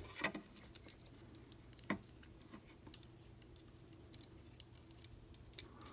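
Faint scattered clicks and taps of a screwdriver and a small screw against the flip clock's parts as a screw is worked into place, with the sharpest click about two seconds in. A low steady hum runs underneath.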